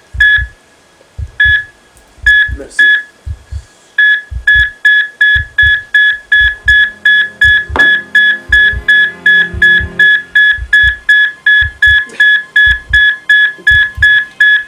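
Heart-monitor beeps, each a short high tone with a low thump. They come irregularly at first and then settle into a quick, even beat of nearly three a second. Music with guitar comes in under them about halfway through.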